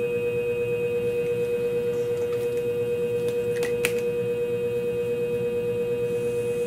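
Scimech flat hone shear-sharpening machine running with a steady hum, pulsing slightly about four times a second. A small click about four seconds in.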